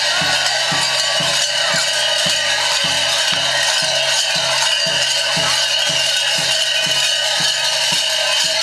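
Many large mummers' bells clanging together continuously, over a regular low beat about three times a second.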